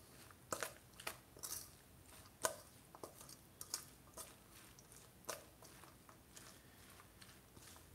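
Coleslaw being stirred with a spoon in a stainless steel bowl: faint, irregular wet squishes and light clicks as the dressed shredded cabbage is turned over.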